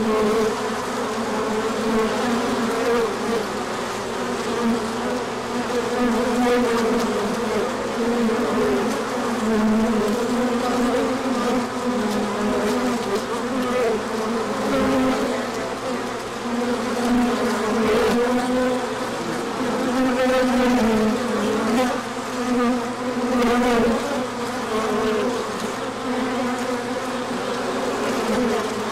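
Many honey bees buzzing in flight around the hives: a continuous hum whose pitch wavers up and down as bees pass close.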